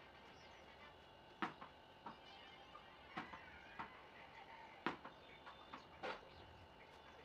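Handling of a tin can while wet cloth is wrapped and pressed around it: about six short, sharp taps and knocks spread over several seconds, over a faint steady hum.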